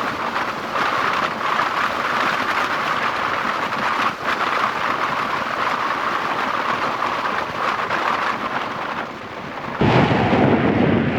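Loud, steady rush of wind and road noise from a moving vehicle, buffeting the microphone. Near the end it shifts abruptly to a deeper rumble.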